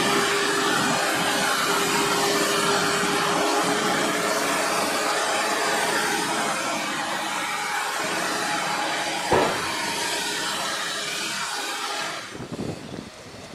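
JCB 418S wheel loader's diesel engine working hard as it buckrakes chopped maize on a silage clamp, a steady dense machine noise with a whine that fades after a few seconds. A single sharp knock comes about nine seconds in, and the sound drops sharply about twelve seconds in.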